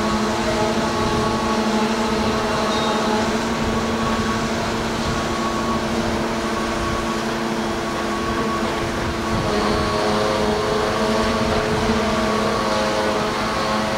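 Large mobile crane's diesel engine running steadily: a constant droning hum with several steady pitched tones, which shift slightly about two-thirds of the way through.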